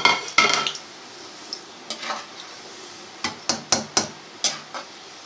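Besan godre (gram-flour dough pieces) deep-frying in hot oil with a steady sizzle, while a long metal spoon stirs them. The spoon clinks and scrapes against the metal pot near the start and then several times in quick succession later on.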